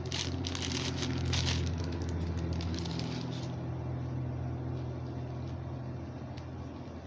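Clear plastic packaging crinkling as a vinyl apron is pulled out and handled, loudest in the first second or two, then quieter rustling with a few faint ticks. Under it a low steady droning hum swells slightly, fades and stops near the end.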